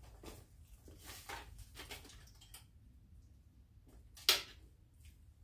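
Faint clicks and rattles of small hand tools being handled, with one sharper clack about four seconds in, as a screwdriver bit holder is picked out to tighten a loose knife pivot.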